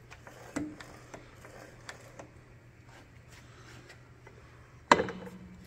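Light clicks and knocks of hands and camera handling on a surface grinder, then one loud metallic clank near the end that rings briefly, over a steady low hum.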